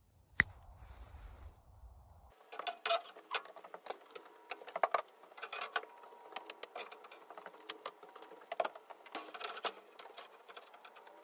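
A single finger snap about half a second in. Then a string of irregular light knocks and clatters as wooden one-by boards are handled and set onto the bed lift's metal frame overhead.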